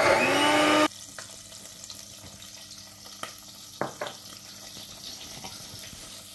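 Oil frying faintly in a stainless steel pot, with a few sharp clicks of the spatula against the pot. A louder sound cuts off abruptly about a second in.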